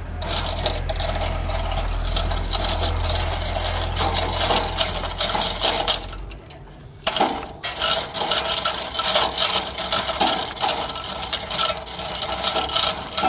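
Manual chain hoists being hand-pulled to lift a log: a dense, steady rattle of steel chain links running through the hoist blocks and clinking against the steel gantry. The rattling drops briefly about halfway, then resumes, and a low hum underneath stops about halfway.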